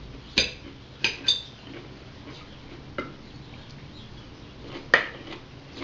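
Knives and forks clinking and scraping on ceramic plates as goose breast steaks are cut: a few sharp clinks in the first second and a half, another around three seconds in, and the loudest near five seconds.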